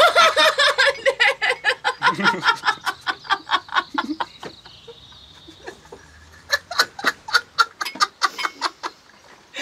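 People laughing hard in quick, high, hiccuping pulses, about five or six a second. The laughter breaks off for a moment around the middle and then starts again in a second fit.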